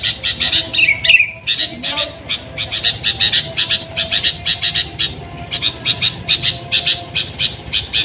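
Sooty-headed bulbul (kutilang) calling from its cage in fast runs of short, harsh chips, with a brief downward-sliding note about a second in and short pauses between runs.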